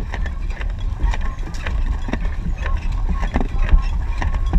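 Apple mill of a cider press crushing apples fed through its wooden hopper: a steady low rumble with frequent sharp cracks and knocks as the fruit is broken up.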